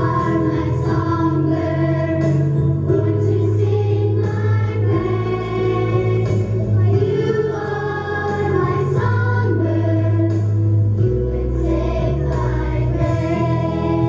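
A children's chorus and a woman singing a slow song together over an instrumental accompaniment with long held bass notes.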